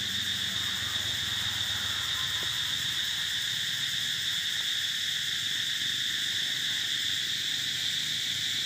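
Steady, high-pitched drone of an insect chorus in the trees, holding one shrill pitch with fainter overtones and no breaks.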